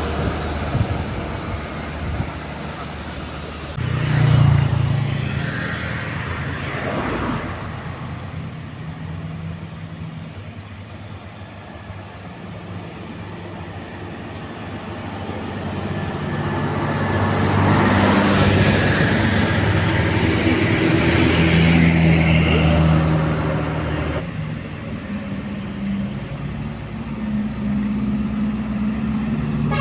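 Road traffic passing on an uphill road, heavy vehicle engines working as they go by. The engine noise swells sharply about four seconds in, then rises again and stays loud for several seconds past the middle before falling away.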